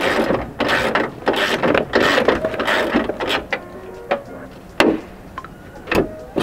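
Socket ratchet wrench clicking in short quick strokes, about two a second, as a hood hinge bolt is loosened. It stops after about three and a half seconds, and a few single sharp clicks and knocks follow.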